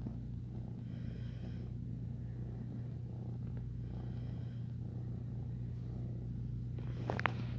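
Tabby kitten purring steadily while its belly is rubbed, with a few soft rustles and clicks near the end.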